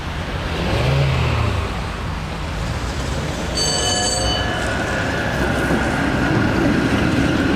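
Konstal 105Na tram running past close by on curved track: a steady rumble of wheels and motors. About halfway through comes a brief high ringing sound, followed by a thin, steady high whine.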